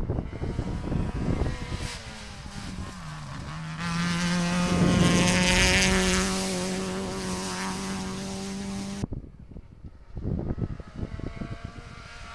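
Rally car passing on a special stage at speed. Its engine note falls about three seconds in, then holds a steady high pitch and is loudest around the middle as the car goes by. The sound cuts off abruptly about nine seconds in and gives way to a fainter, uneven engine sound.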